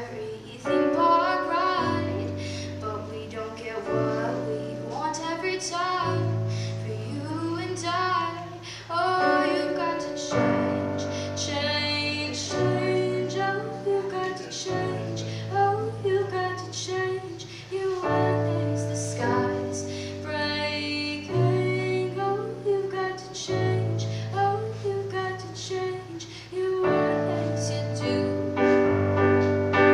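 A young woman singing live while accompanying herself on an electronic keyboard, with low held piano chords changing about every two seconds under the sung melody.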